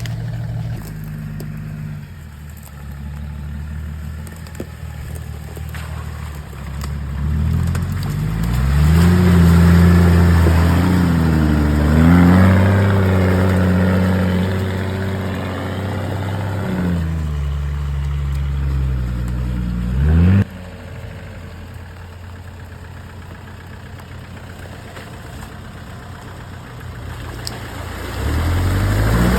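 Off-road 4x4's engine idling, then revving for several seconds with the pitch climbing and wavering before it falls back. About twenty seconds in a short rev-up cuts off suddenly, the engine runs low and steady, and it revs again near the end.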